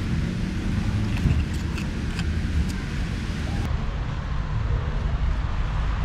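Low, steady rumble of wind buffeting the microphone, with a few faint light clicks from about one to three seconds in.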